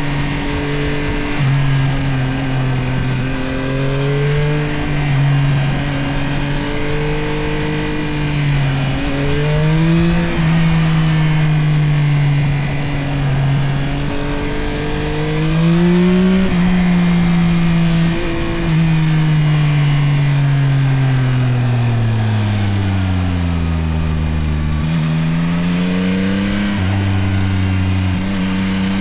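Yamaha CP3 890 cc inline-three engine of a Tracer 9 GT+ motorcycle under way, its note rising and falling with the throttle and stepping up sharply a couple of times. About two-thirds of the way in it winds down steadily as the bike slows, then pulls up again near the end, with wind rush underneath.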